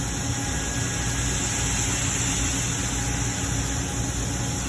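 Steady mechanical hum with hiss, unchanging, with no distinct clicks or other events.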